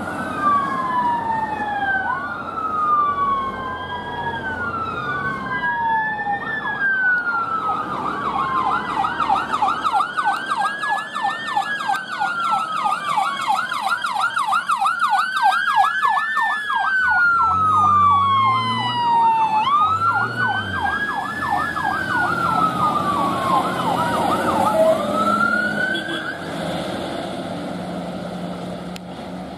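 Sirens of two fire engines responding: a slow rising-and-falling wail throughout, joined from about eight seconds in by a fast yelp. Both fade out near the end, leaving engine and road noise.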